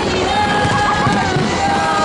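Large outdoor crowd cheering and yelling, with held and gliding voices over music.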